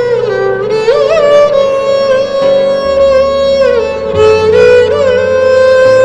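Instrumental background music: a single sustained melody that slides between held notes with little turns, over a low bass part that shifts every second or so.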